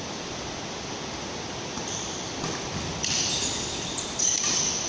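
Steady background hiss of a badminton hall. In the last two seconds, short scuffing bursts and a thin high squeak come from a doubles rally on the court, typical of players' shoes on the court floor.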